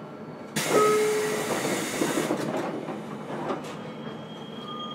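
A sudden loud hiss of released compressed air from a standing electric train, with a brief whistling tone in it, fading away over about two seconds; fainter knocks follow.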